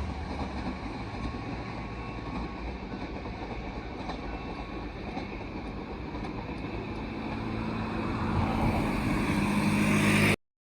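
A train running past on the line, a steady rumbling noise with a low hum under it, swelling again near the end before cutting off suddenly.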